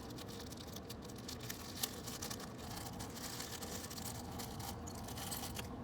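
Faint rustling of a small plastic parts bag, with light clicks of small hardware as the replacement latch pieces are taken out; one click slightly louder about two seconds in.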